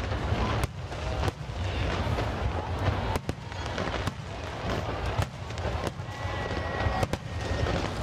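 Fireworks display: aerial shells bursting in a series of sharp bangs at irregular intervals, about one every half second to second, over a continuous low rumble of distant explosions.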